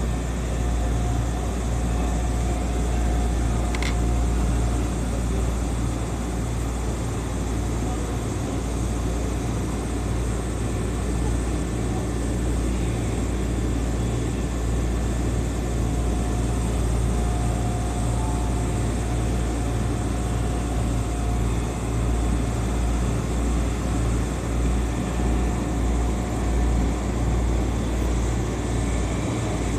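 Steady low hum inside the front cab of an electric commuter train standing at a platform. A faint high tone comes and goes, and there is a single short click about four seconds in.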